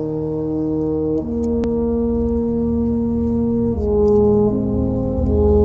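Background music: slow, sustained brass chords, each held for one to two seconds before moving to the next.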